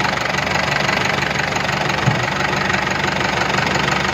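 Tata Yodha BS4 diesel engine idling steadily with a knocking sound, which the title ties to its fuel injectors. A single short low thump stands out about two seconds in.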